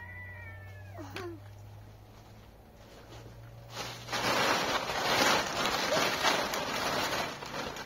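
A rooster's crow, the tail of a long call, falls away about a second in. From about four seconds in, a loud rough rustling and crackling noise takes over.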